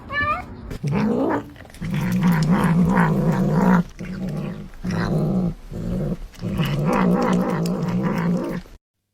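A pet growling: a short rising cry at the start, then a low, wavering growl in several long stretches with short breaks, stopping just before the end.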